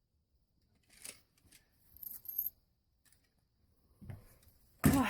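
Scattered handling noises of a window being fitted: a few brief scrapes and rustles, a low thump, then a sudden, louder short sound with a bending pitch near the end.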